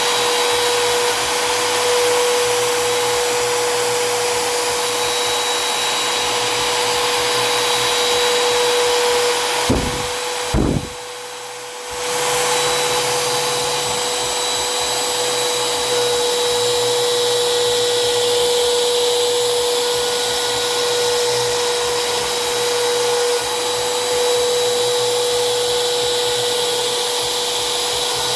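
CNC router spindle running with a steady whine as it mills a PVC downspout cap. About ten seconds in there are two short knocks and the sound drops away for about a second before picking up again.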